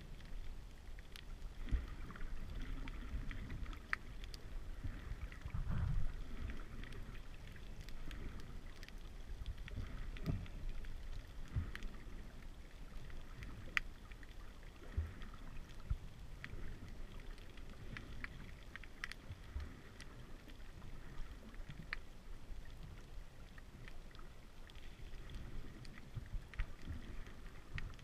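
Muffled underwater water noise heard from a submerged camera: a low rumbling wash with scattered sharp clicks and a few dull thumps, the loudest about six seconds in.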